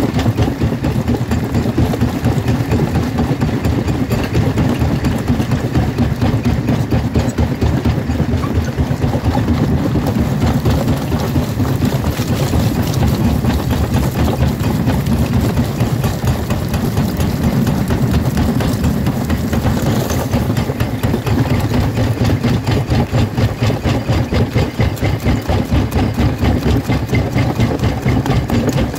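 Jaw crusher running under load, a steady mechanical drone with a rapid, even pulsing as the moving jaw works, and rock cracking and grinding between the ridged steel jaw plates.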